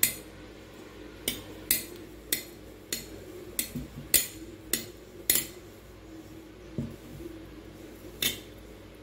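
Wooden dal-masher stick knocking and clinking against a stainless steel bowl as rice flour and jaggery syrup are stirred into dough: sharp, irregular knocks about once a second.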